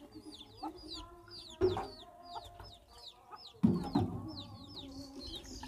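Chickens clucking, with a steady run of short, high, falling peeps and two louder, lower clucks about a second and a half in and again near four seconds.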